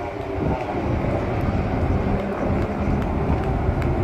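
Light helicopter flying overhead, a steady low rumble from its rotor and engine that grows slightly louder just after the start.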